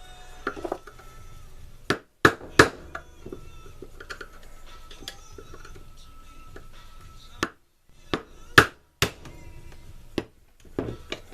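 A handful of sharp knocks and taps at a workbench, as in tapping the handle pins of a knife: about six loud strikes, two close together a couple of seconds in, more near the end, over faint background music.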